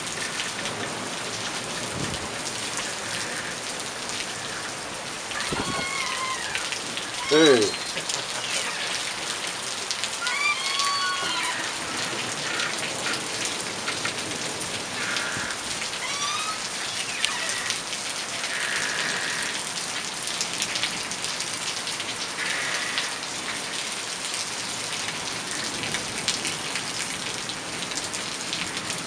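Heavy rain pouring steadily on a wet street during a storm, a dense even hiss. It is broken by a few short pitched sounds, the loudest a brief cry that slides down in pitch about seven and a half seconds in.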